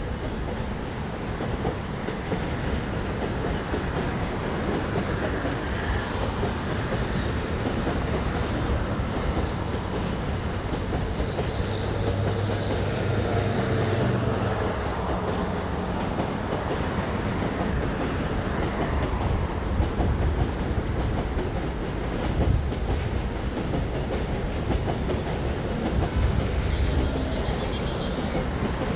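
Container freight train rolling past, its wagon wheels clattering steadily on the rails, with a brief high wheel squeal about ten seconds in.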